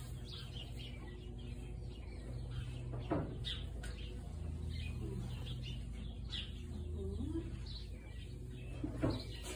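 Small birds chirping over a steady low hum, with a soft knock about three seconds in.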